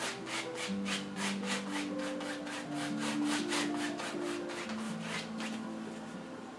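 A 2-inch flat craft brush scrubbing acrylic paint across a stretched canvas in quick, even strokes, about four a second, that stop about five seconds in. Soft background music with long held notes plays underneath.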